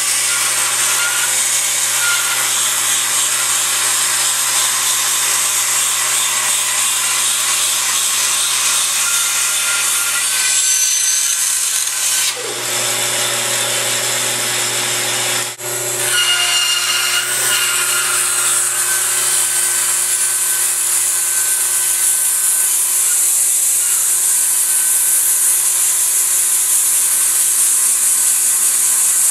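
Band saw running steadily and ripping wood. The sound changes briefly around the middle.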